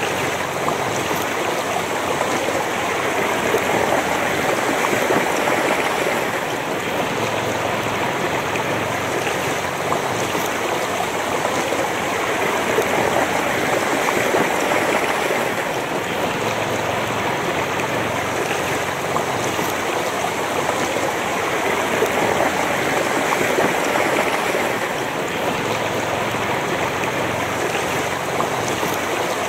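A shallow river running fast over stones, a steady rushing and babbling of water heard close to its surface.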